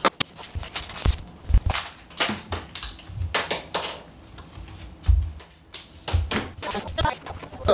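An irregular run of knocks, clicks and clatter: household items such as bottles, tools and utensils being picked up and set down on a kitchen counter and in the sink while it is tidied.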